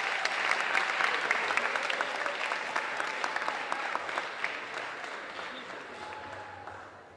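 Audience applauding: many hands clapping together, strong at first, then tapering off and fading out near the end.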